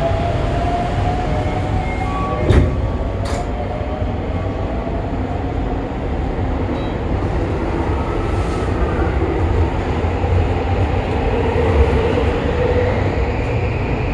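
Toei 5500 series subway car heard from inside, with a steady rumble and two sharp knocks about three seconds in. Near the end the train pulls away, its Mitsubishi full-SiC VVVF inverter giving a rising whine as it accelerates.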